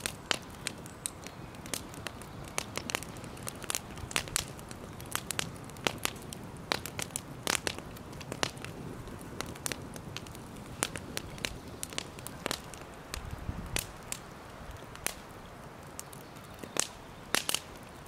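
Wood fire crackling: irregular sharp pops and snaps, several a second, over a faint steady hiss.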